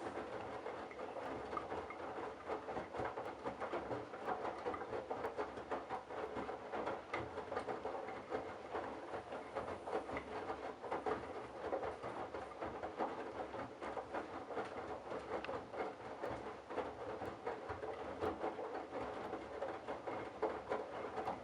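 Candy Bianca front-loading washing machine drum tumbling a load of towels in sudsy water during a 60° wash: a continuous run of sloshing and soft irregular thuds.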